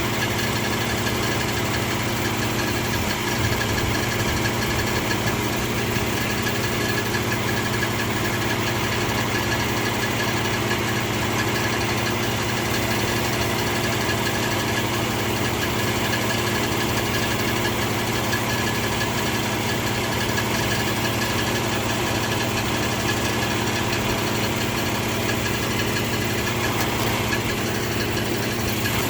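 2004 Infiniti G35's 3.5-litre V6 idling steadily with a ticking noise.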